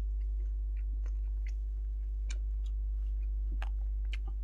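Chewing: a man's wet mouth clicks and smacks, a few short irregular ticks, over a steady low hum.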